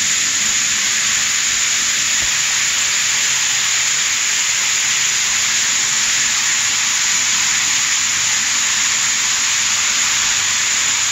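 Water pouring from a 20-by-40-inch ceiling rain shower head with 75 spray nozzles and splashing onto the tiled shower floor. It makes a steady, even hiss of falling water.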